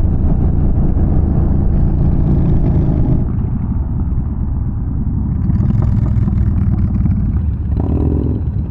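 Yamaha Bolt's air-cooled V-twin engine running under way, easing off slightly about three seconds in.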